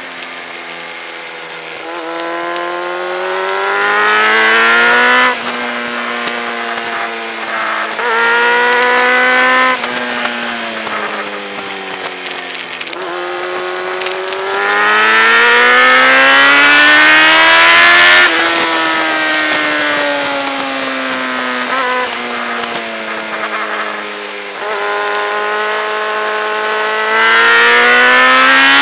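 Motorcycle engine accelerating hard on a race track, its pitch climbing in long pulls that break off sharply at each upshift, then sliding down under braking and downshifts before climbing again, several times over.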